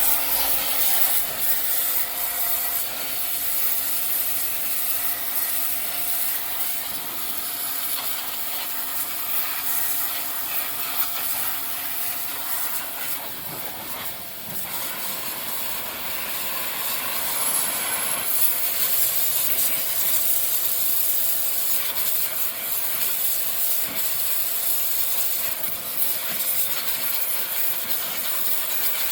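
A Suzuki 250's dirty motorcycle drive chain running over its sprockets with a steady rasping, scraping noise, with a faint steady hum underneath. The noise comes from a chain clogged with dirt and rust and short of lubrication, here being soaked and cleaned with diesel.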